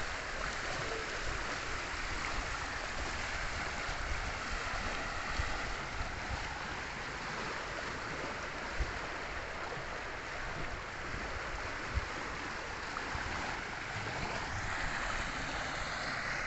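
Swollen, muddy river in flood rushing and churning along its bank, a steady rush of moving water.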